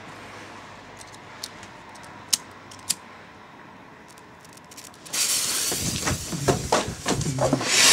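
A few sharp clicks of a lighter being struck. About five seconds in, a steady loud hiss starts as the lit fuse of a black powder rocket burns, and right at the end the rocket motor ignites with a louder rush.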